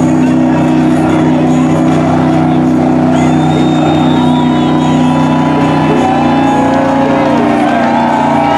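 Mud buggy's engine held at steady high revs as it churns through a deep mud hole, its pitch shifting about six seconds in.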